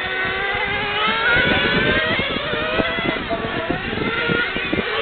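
Small engines of radio-controlled on-road cars running around a track, a buzzing whine whose pitch rises and falls as they speed up and slow for corners. Several cars are heard at once, growing louder about a second in.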